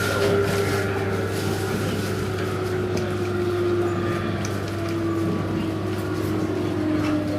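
JR East 719 series electric train's traction motors whining inside the carriage, the pitch falling slowly as the train slows, over steady rail and running noise. This unit's motor sound is unlike that of the usual 719 series.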